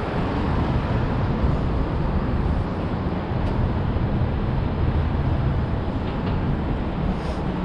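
Steady low rumbling street noise outdoors, dense and strongest in the bass, with no clear single event.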